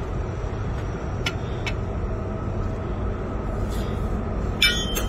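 Light metal clicks and taps as a cylinder liner is worked into a tractor engine block's bore, with a sharper ringing metal clink about four and a half seconds in, over a steady low rumble.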